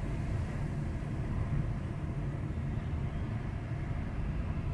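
Car driving along a city street, with a steady low rumble of engine and tyre noise.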